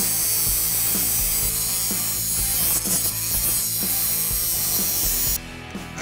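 Bosch angle grinder with a metal cutoff wheel running steadily while cutting through a steel bracket, then cutting off abruptly about five and a half seconds in.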